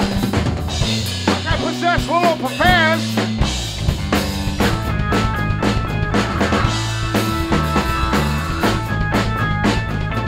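A live rock trio playing: drum kit with snare and bass drum hits, electric bass and electric keyboard. A wavering, bending high note sounds over the band about two seconds in, and the bass and drums settle into a fuller groove shortly after.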